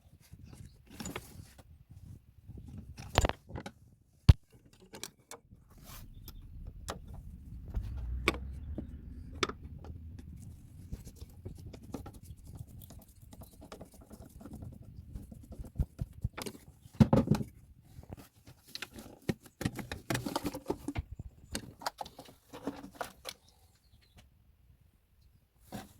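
Metal tools and engine parts clinking, knocking and rattling at irregular intervals as they are handled, with a few sharper knocks, the loudest about 4 and 17 seconds in.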